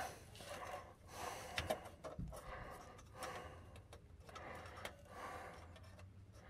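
A person breathing quietly in repeated soft breaths while working overhead under a car, with a few faint clicks of small metal parts being handled.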